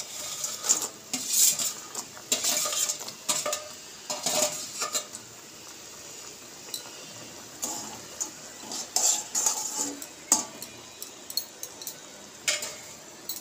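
Metal utensils clinking and scraping against an aluminium kadai, irregular and busiest early on and again later, as fried small fish are added to a mustard gravy and stirred. A faint steady sizzle of the gravy runs beneath.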